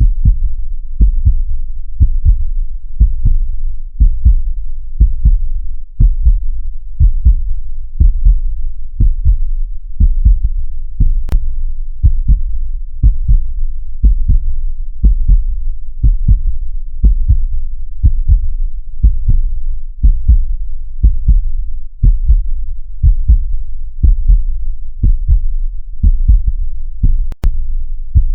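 Heartbeat sound, a steady lub-dub of paired low thumps at about one beat a second. Two brief sharp clicks come in, one near the middle and one near the end.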